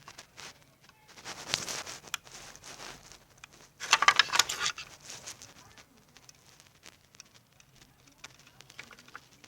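Clicks, knocks and scraping of small plastic speaker parts being handled and pulled apart as a woofer is taken out of the speaker housing, with two louder clattering bursts, about a second and a half in and again around four seconds in.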